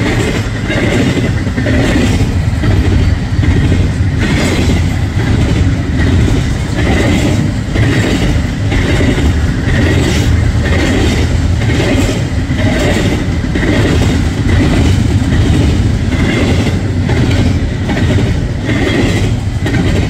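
BNSF double-stack intermodal freight train rolling past, its container well cars making a steady loud rumble with repeated clacks of wheels over the rail joints.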